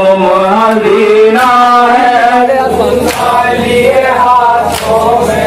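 A group of men chanting a noha, a Shia mourning lament, together in unison. A sharp chest-beating slap (matam) comes about every second and a half.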